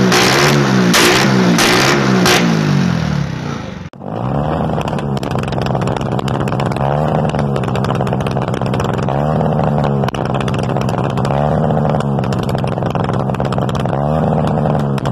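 Motorcycle with a cut, open exhaust revved in quick blips about twice a second, each with a sharp crack. About four seconds in the sound cuts to an engine revving up again and again, a rise every two seconds or so.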